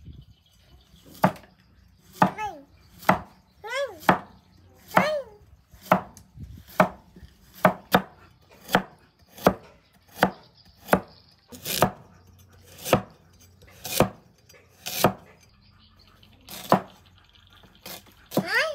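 Cleaver slicing carrots into rounds on a wooden chopping block: a steady knock about once a second. Between the chops come a few short, high calls that sweep up and down, several of them a few seconds in and one near the end.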